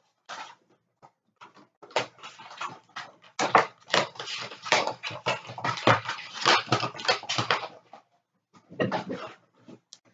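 Loud banging and clattering, a rapid jumble of knocks from about two seconds in until about eight seconds, then a shorter burst near the end.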